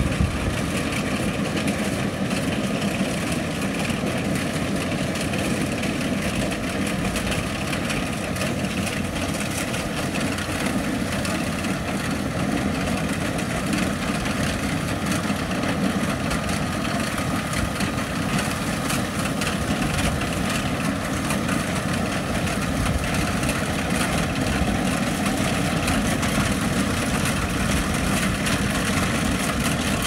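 Kubota rice combine harvester running steadily while cutting a rice crop, its engine and machinery making an unbroken drone that grows slightly louder toward the end as the machine comes closer.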